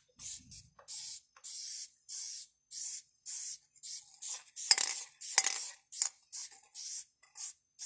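Aerosol spray paint can (Arte Urbana) hissing in a quick series of short bursts, about two a second, as paint is dusted onto a wall; two bursts about halfway through are louder.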